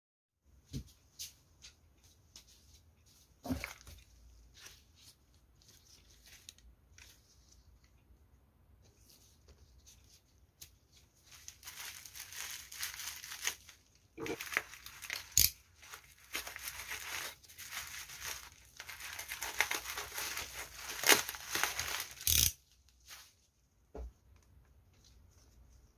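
A delivery parcel's packaging being torn open and handled. Scattered clicks and small rustles come first, then a long stretch of tearing and crinkling from about halfway through, with a few sharp knocks.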